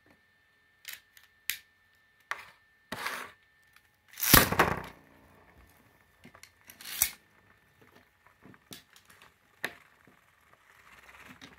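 Small plastic clicks as a Beyblade top is fitted onto its launcher, then a toothed ripcord is yanked out about four seconds in, a short loud rip, sending the top spinning in a plastic stadium with a faint spinning hiss and a few sharp clicks.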